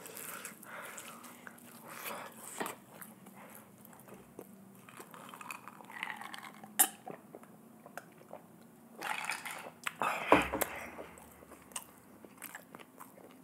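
Close-miked eating sounds: biting into and chewing spicy fried chicken, with wet mouth clicks and crunches. About halfway through there is a pause to drink from a glass of water.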